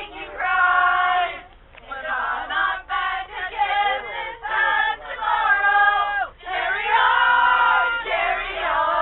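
A group of voices singing a tune together in long held notes, phrase after phrase.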